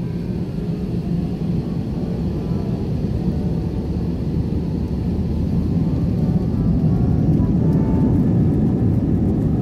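Airbus A321 cabin noise from a window seat: a steady low rumble from the engines and airframe that grows gradually louder in the second half.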